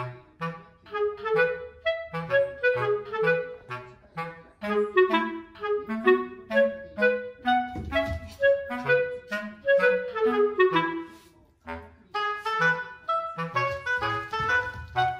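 Background music: a lively clarinet melody of short, detached notes over a bass line, pausing briefly about two-thirds of the way through.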